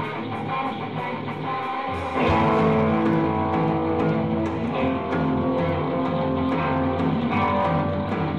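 Live Oi! punk band: electric guitar playing over a steady tick of about four a second, then about two seconds in the full band comes in louder with drums and distorted guitar.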